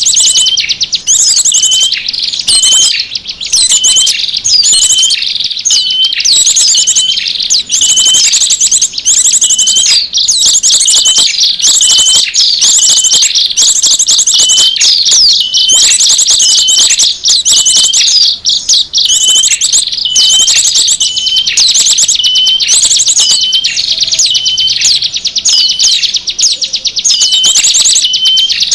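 Small songbirds' calls played as a bird-lure recording: a dense, unbroken mix of rapid high chirps and trills, with one short call repeating about once a second for much of the time.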